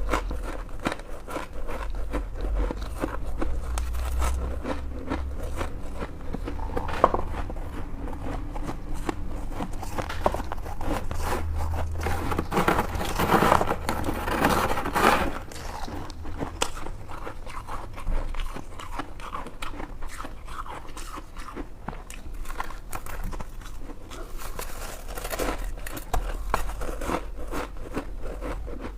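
White freezer-frost ice being bitten and chewed close to the microphone: a continuous run of crisp crunches, densest and loudest about halfway through.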